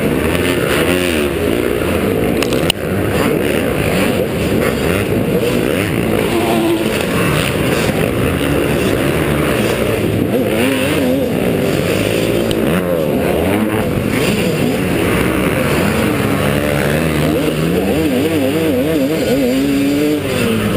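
KTM 250SX two-stroke motocross engine revving hard and dropping back again and again as the throttle is worked, heard from the rider's helmet, with other motocross bikes running close by at first. There is a sharp knock a little under three seconds in.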